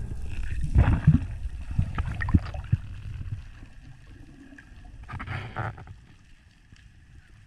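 Underwater sound as heard by a diver's camera: a low rush of water with several sharp knocks and clicks in the first three seconds, a brief swell of noise about five seconds in, then quieter.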